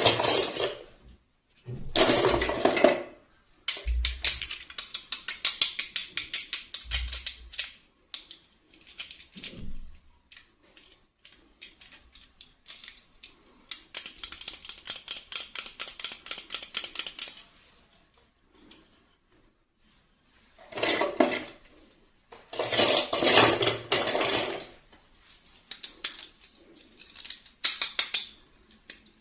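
Close-up handling of plastic dolls and their packaging: long runs of rapid small clicks and taps, with a few louder rustling bursts near the start and again about two-thirds of the way through.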